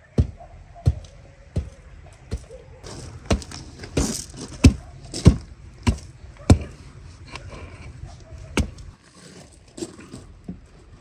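A run of sharp knocks, about one and a half a second, some with a short ring, then a pause and a few fainter knocks near the end.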